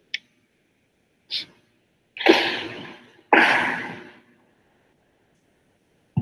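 Two loud, breathy bursts of noise, each sharp at the start and fading over about a second, like a sneeze or a hard breath picked up through a video-call microphone. A faint click and a short puff come before them.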